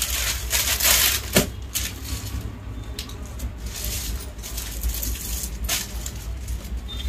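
Clear plastic packaging crinkling and rustling as packed suits are handled, loudest in the first second and a half, with a few sharp clicks, over a steady low hum.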